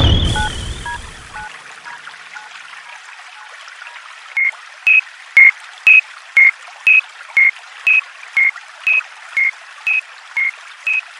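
Cartoon level-crossing warning bell: short electronic beeps alternating between two pitches, about two a second, starting about four seconds in, over a steady hiss. At the start a low hit fades out over about a second and a half.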